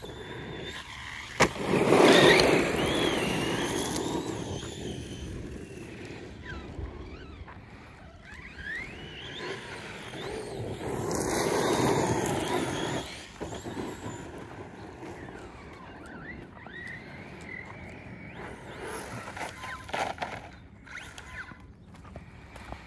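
Electric motor of a Rival MT8 RC monster truck running on 6S, whining up and down in pitch with bursts of throttle, over the noise of its tyres rolling on the ground. A sharp knock comes about a second and a half in, and the loudest bursts of running are about two seconds in and again around eleven to thirteen seconds.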